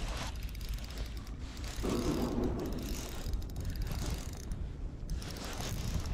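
Fishing reel cranked to retrieve a lure, its gears ticking rapidly, with a steady low rumble underneath.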